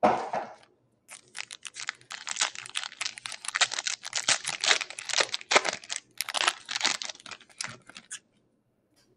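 Foil trading-card pack torn open and its wrapper crinkled: a short rustle at the start, then a dense run of crackling for about seven seconds that stops shortly before the end.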